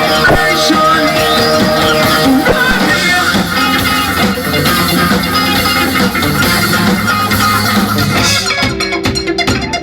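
Live band music: electric guitar, bass and drum kit playing a rock song.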